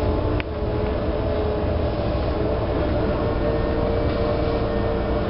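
Interior sound of an M-A-N articulated electric trolleybus in operation: a steady low rumble with a constant hum over it, and one sharp click about half a second in.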